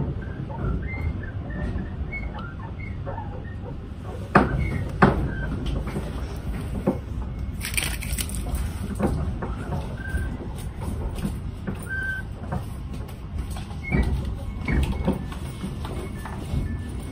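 Heard from inside a passenger train slowly pulling into a terminus platform: a steady low rumble with scattered clicks and knocks as the wheels cross rail joints and points, and a few brief high squeaks. A short hiss comes about eight seconds in.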